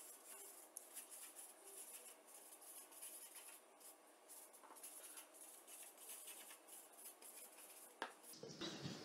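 Faint scratching and squeaking of a marker pen writing on flipchart paper, with one sharp click about eight seconds in.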